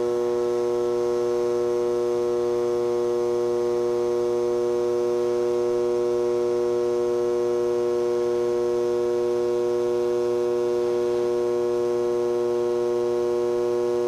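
Small electric furnace blower motor running steadily, giving a constant electrical hum made of several held tones.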